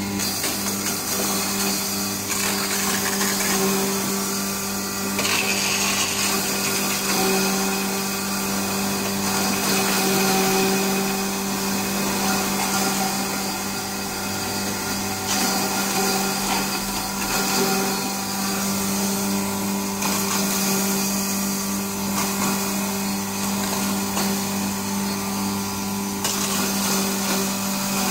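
Electric pulveriser (spice grinding mill) running steadily with a constant hum while cinnamon bark is fed into it and ground, a rough grinding noise laid over the hum.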